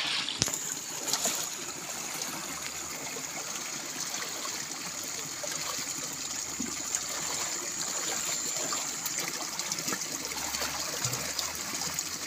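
Shallow stream water running and trickling steadily around the legs of someone wading in it, with one sharp tap just after the start.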